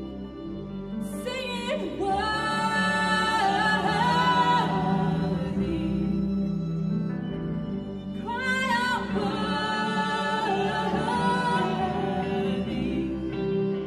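Live worship music: two women singing long, held phrases over a slow, sustained band accompaniment. The voices come in twice, about a second in and again around eight seconds in.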